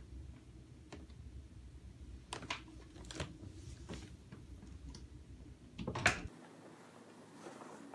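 Faint, irregular clicks and taps over a low hum, with a louder knock about six seconds in, after which the hum cuts off.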